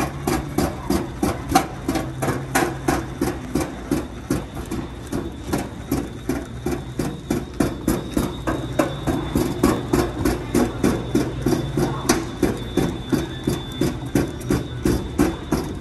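Flatbed cart with a large box on it rolling over a hard store floor: a steady rumble with a regular clack about three times a second.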